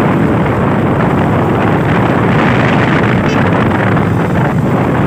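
Motorcycle riding along at a steady speed: engine and road noise mixed with wind buffeting the microphone in a continuous rush.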